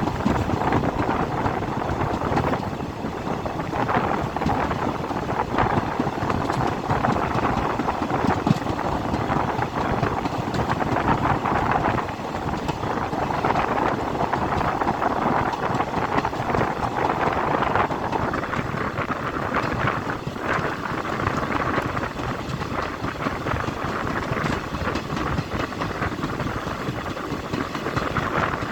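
Train wheels running on the rails: a steady noise with scattered sharp clicks.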